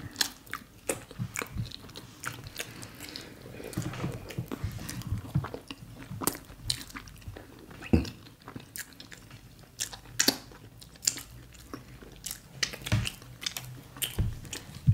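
Close-miked eating sounds of two people eating mashed beans, fried plantain and bread by hand: wet chewing, lip smacks and finger-sucking clicks at an irregular pace. A few sharper smacks stand out, one about eight seconds in and another near the end.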